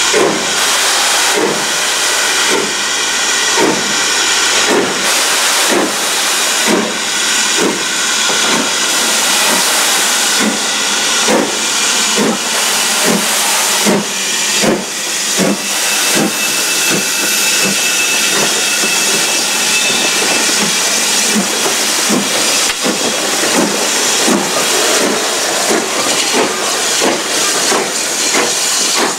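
BR Standard Class 4MT 2-6-0 steam locomotive No. 76079 working hard as it pulls a train away. Its exhaust beats come steadily at about one and a half a second over a constant loud hiss of steam.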